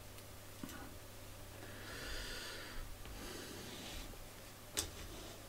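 Quiet handling of an opened audio cassette's plastic shell, hub and tape by hand: a few faint clicks, two soft hissing breaths in the middle, and one sharp plastic tap near the end.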